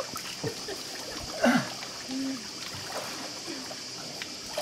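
Water splashing and sloshing around people wading and swimming in a lake, with short snatches of voices.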